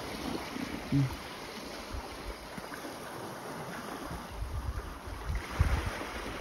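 Wind buffeting the microphone over the steady wash of the sea on a rocky shore, with heavier gusts in the second half. A brief low sound stands out about a second in.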